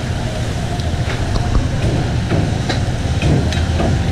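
Busy street-food stall ambience: a loud, steady low rumble with scattered light metallic clicks throughout.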